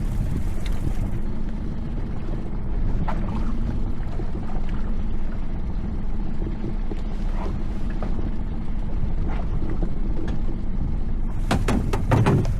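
Steady low rumble and hum aboard a small fishing boat at sea, with a quick run of sharp knocks or rattles near the end.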